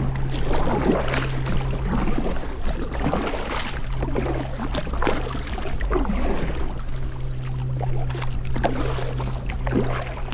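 Kayak paddle strokes dipping and splashing in the river water, irregularly, over a steady low hum.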